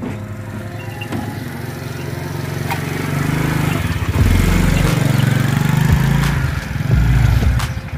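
Small motorcycle engine running as the bike is ridden in, getting louder about three to four seconds in, with its pitch rising and falling as the throttle is worked.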